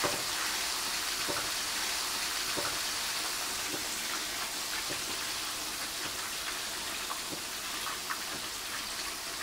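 Cornflour-coated fish pieces frying in hot oil in a frying pan: a steady sizzle, with a few faint clicks of a metal ladle as the hot oil is spooned over the fish.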